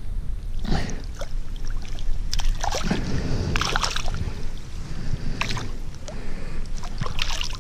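Water sloshing and splashing in irregular bursts as a wire-mesh fishing keepnet is moved about and lifted in shallow pond water, with a few light clicks and rustles of the wire.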